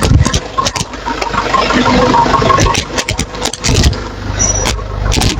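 Nissan Patrol's 3.0 L ZD30 diesel engine running at idle just after a top overhaul, mixed with many sharp clicks and knocks. The engine's low rumble grows stronger near the end.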